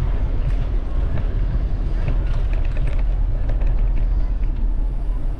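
Steady low rumble of riding a bicycle along city streets, road and air noise on the camera's microphone, with a scattering of short clicks and ticks.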